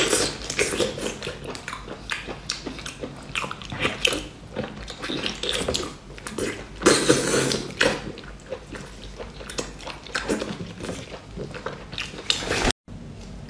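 Close-miked wet chewing, biting and slurping of braised whole baby octopus, with many small sticky mouth clicks and smacks. The sound cuts out abruptly near the end.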